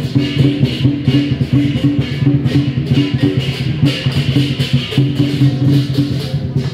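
Chinese procession music: drums and cymbals beating under a melodic line of held, stepping notes.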